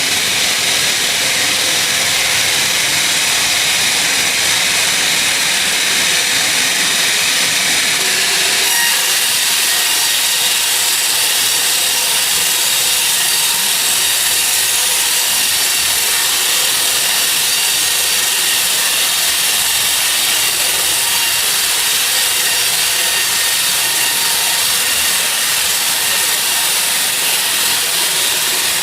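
Sawmill saw cutting through a teak log: a loud, steady rushing whine of blade in wood that turns brighter about nine seconds in.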